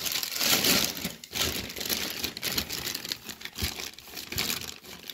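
Clear plastic wrapping around a steel flywheel crinkling as hands turn and handle it. The crinkling is a dense, irregular crackle, loudest in the first second.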